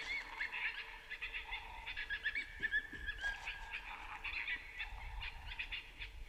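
Coyotes yipping and howling: a chorus of quick, high, wavering yips, with one howl held for about a second in the middle.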